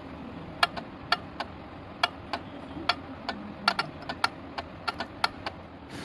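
Sharp metallic clicks and taps from hand work on a Daihatsu's air-conditioning compressor clutch, about seventeen in six seconds at uneven spacing, some in quick pairs, over a low steady hum.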